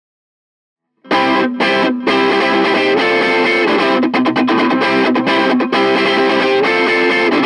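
Intro of a psychedelic punk-rock song: an effects-laden, distorted electric guitar starts about a second in and plays a choppy riff with short regular breaks, no bass or drums yet.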